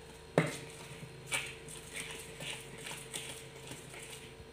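A spoon stirring rice batter in a stainless steel bowl, clinking and scraping against the steel: one sharper knock just after the start, then lighter clicks about every half second.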